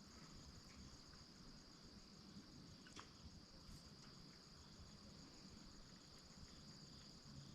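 Faint, steady high-pitched insect trilling, with a couple of faint ticks about three seconds in.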